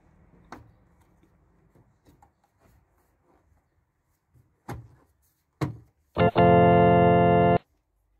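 A few scattered clicks, then a loud, steady organ-like tone that starts suddenly, holds for about a second and a half, and stops abruptly.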